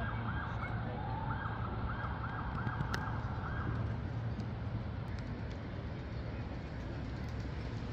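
A distant siren wailing up and down in quick rising-and-falling sweeps, about two a second, stopping about four seconds in, over a steady low rumble.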